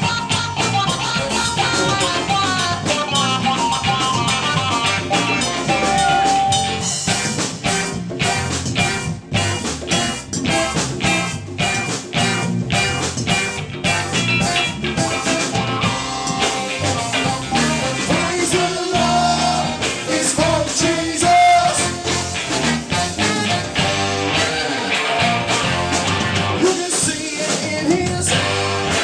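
Live band playing: electric guitar, saxophone and drum kit together, with a steady beat.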